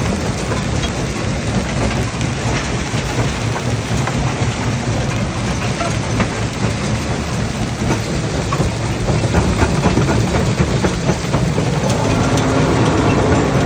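Rock crusher at work: a loud, steady heavy rumble with dense crackling and rattling of breaking stone. A droning machine tone joins about twelve seconds in.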